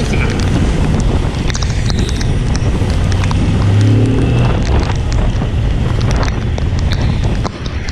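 Motorcycle on the move in rain: heavy wind noise on the microphone over the engine running and tyres on the wet road. It is loudest about four seconds in and dips briefly near the end.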